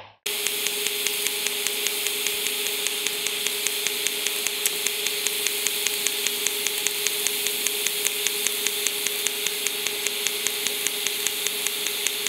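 Pulsed DC TIG welding arc from an EWM Tetrix 200 DC, hissing steadily with a constant hum and a fast, even ticking, while filler wire is fed in continuously by a MIG/MAG wire feeder.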